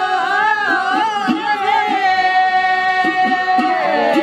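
Group of women singing a Himachali folk song in unison, holding long steady notes, with a regular low beat about three times a second underneath.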